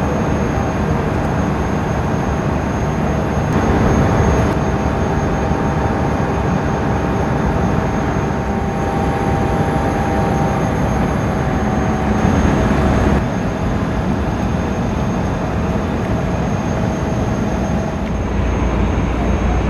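Jet airliner's engines running at high power with a steady rumble and roar, as on a takeoff; a faint steady hum fades out about two-thirds of the way through.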